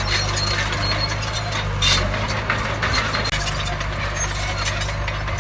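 Diesel engine of heavy earthmoving machinery running steadily, with a dense clatter of metallic clicks and knocks over it and a brief louder burst about two seconds in.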